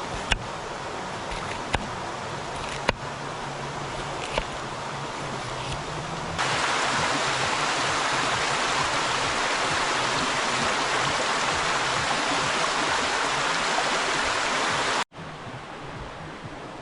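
River water rushing over stones, with a few sharp clicks in the first few seconds. About six seconds in it jumps to a louder, closer rush, which cuts off abruptly near the end and gives way to quieter flowing water.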